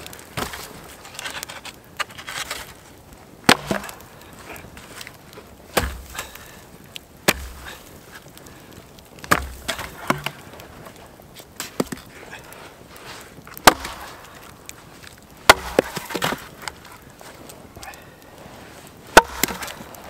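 Dry, resinous wood being broken and split: about eight sharp cracks and splintering snaps at irregular intervals, with quieter rustling of wood being handled between them.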